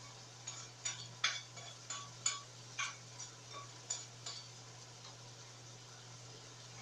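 A metal utensil clinking against a cooking pot as it is stirred: about ten light ringing clinks at an uneven pace over four seconds, then they stop. A steady low hum runs underneath.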